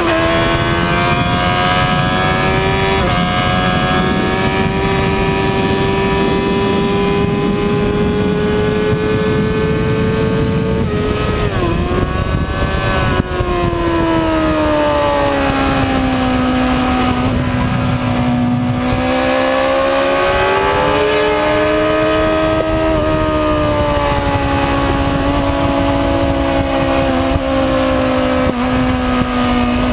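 Onboard recording of a sport motorcycle engine at high revs on a race track, with wind rushing over the camera. The pitch climbs slowly, then drops with a few quick rev blips about halfway through, as on downshifts under braking. After that it pulls more steadily at lower revs.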